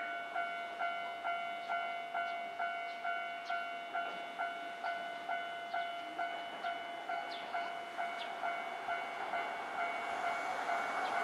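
Railway level crossing alarm bell ringing steadily, about two and a half dings a second. Near the end the running noise of a Hankai tramway tram rises under it as the tram approaches the crossing.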